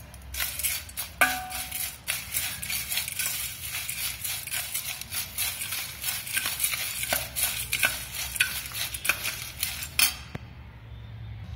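Stainless steel spoon stirring puffed rice in a stainless steel bowl: dry rustling of the grains with repeated scrapes and clinks of the spoon against the bowl, the loudest a ringing clink about a second in. The stirring stops about a second before the end.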